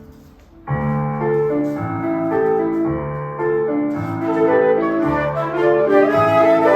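Flute duet with piano: the piano's accompaniment begins a little under a second in, and the flutes' melody joins about halfway through and grows louder.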